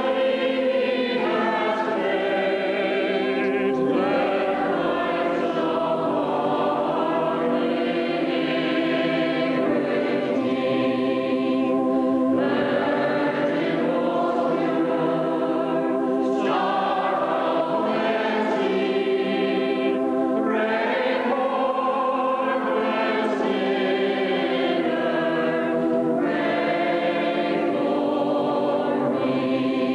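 Church choir singing a hymn in sustained phrases that pause every few seconds.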